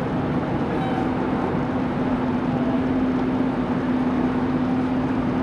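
Steady drone of running machinery or an idling engine, with a constant hum.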